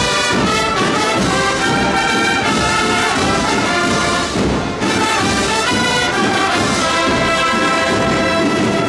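Brass band playing a Holy Week processional march, loud and continuous, with a brief dip about four and a half seconds in.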